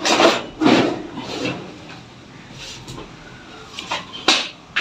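Paper rustling and rubbing as it is handled and fed into a laminating machine: a few quick scrapes in the first second and a half, then two sharp clicks near the end.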